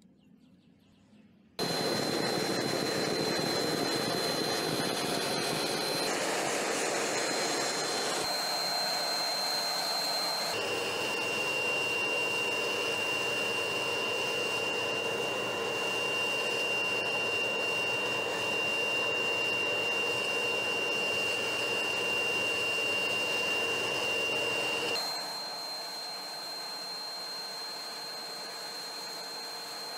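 Air blower running and forcing air through a pipe into a charcoal furnace: a steady rushing noise with a high whine. It starts suddenly about a second and a half in. The whine changes pitch abruptly about ten seconds in, and the noise drops somewhat near the end.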